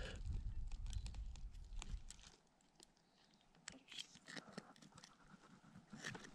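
Faint clicks, crackles and rustling of fishing pliers working a hook out of a bass's mouth, with a low rumble for about the first two seconds that then stops.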